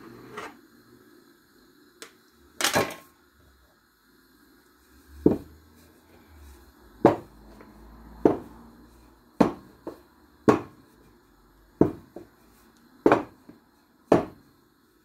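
Wooden rolling pin rolling out chapati dough on a worktop, giving a series of sharp knocks about once a second as it is worked back and forth.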